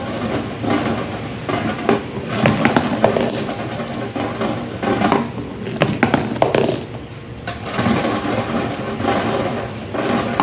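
Marbles rolling and clattering down a marble run: a continuous rumble full of small clicks, easing briefly about seven seconds in before picking up again.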